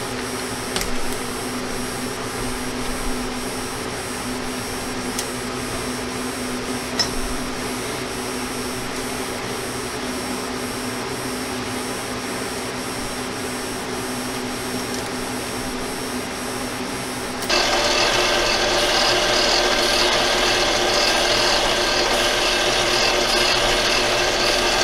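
Mini lathe running with a steady motor hum and a few light clicks as the tool is set. About two-thirds of the way through, the sound suddenly turns louder and harsher as the cutting tool takes a cut on the screw blank.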